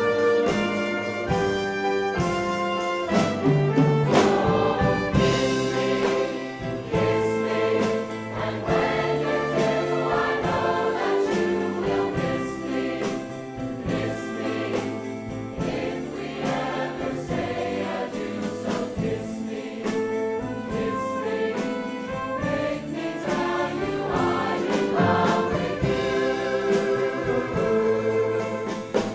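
A large chorus singing a 1950s rock-and-roll medley with live band accompaniment of piano and drums, at a steady beat.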